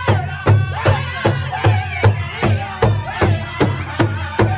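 A powwow drum group of men singing together around one large drum, all striking it in unison at a steady beat of about two and a half strokes a second under the continuous singing.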